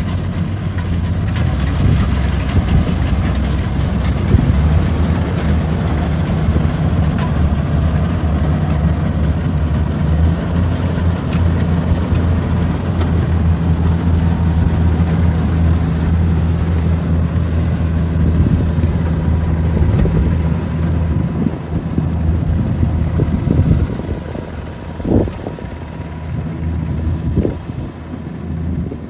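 Kubota rice combine harvester's engine running steadily under load as it cuts, a low droning hum that fades as the machine moves away near the end. Wind buffets the microphone in a few gusts toward the end.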